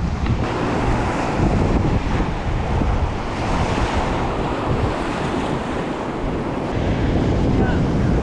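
Steady rush of high, fast river water around a raft, with wind buffeting the microphone in a low rumble.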